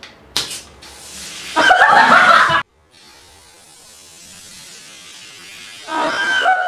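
Plastic Coke bottles twisted open with a sharp hiss, then a steady fizzing rush as the soda erupts in foam with Mentos inside. Loud shrieking laughter comes twice over it, first about a second and a half in, stopping suddenly, then again near the end.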